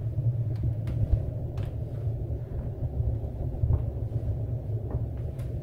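Steady low rumble of a handheld camera being moved, with a few faint light clicks or knocks over it.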